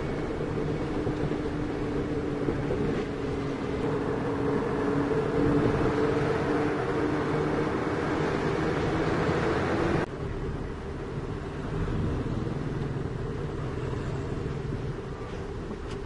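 Truck's diesel engine running under way, heard from inside the cab along with road noise. The sound swells a little, then drops abruptly about ten seconds in and stays lower.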